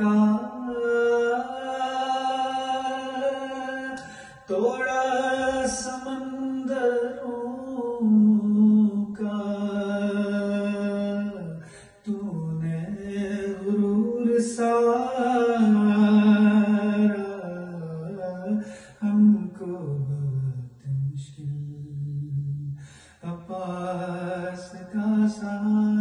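A man's solo voice chanting an Urdu noha, a Shia lament, with no instruments. It comes in long held, gliding phrases with short breaks for breath.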